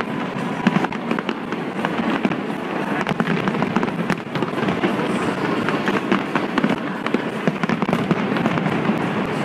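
Large aerial fireworks display: a dense, continuous barrage of bangs and crackles from many shells bursting in quick succession.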